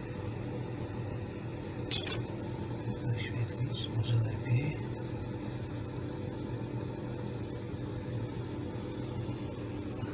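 Eco-pea coal boiler with an auger-fed burner running, a steady low mechanical hum. A sharp click comes about two seconds in, and a few faint crackles follow a second or two later.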